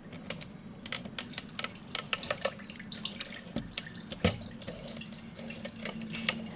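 Petrol draining out of a fuel pump module lifted from a car's fuel tank: irregular drips and trickling, with small clicks.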